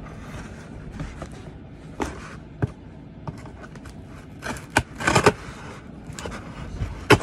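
A mailed package being torn and worked open by hand: irregular scraping and rustling of cardboard and packing, with several sharp knocks and clicks, the busiest stretch a little past the middle.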